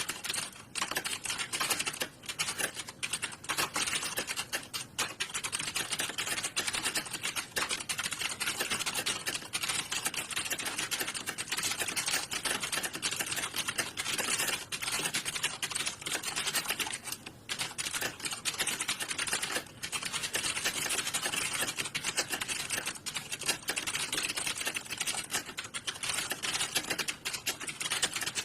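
Many computer keyboards typed on at once, a dense, continuous clatter of key clicks with no pauses: candidates taking a typing test in a room of computers.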